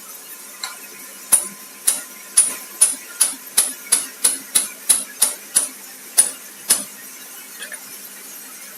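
A series of about fourteen sharp metallic taps or clicks, roughly two to three a second, each with a brief high ring. They stop about two thirds of the way through.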